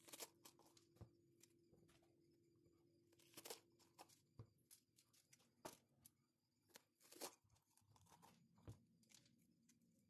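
Green bell peppers being cored with a stainless-steel pepper corer: irregular crisp crunches and tearing of the pepper flesh as the tool is twisted in, with small clicks of metal. The sounds are quiet, with the loudest crunches at the start, about three and a half seconds in, and about seven seconds in.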